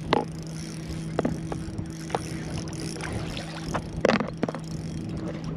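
A hooked bass thrashing and splashing at the surface beside a kayak. There are several short splashes, the strongest right at the start and about four seconds in, over a steady low hum.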